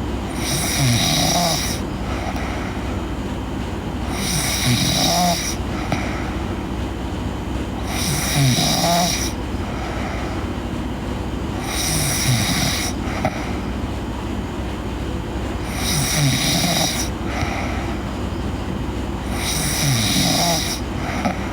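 A girl snoring in her sleep: a rasping, breathy snore about every four seconds, six in all, each lasting about a second.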